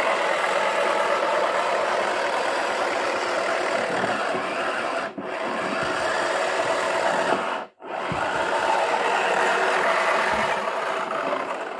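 Wacky Washer toy washing machine running, a steady rasping whir that cuts out briefly twice, about five seconds in and again just before eight seconds.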